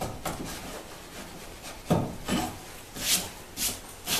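Wide chisel paring a high spot off a wooden tenon cheek: quiet shaving at first, then a run of short scraping strokes about two a second from about halfway in.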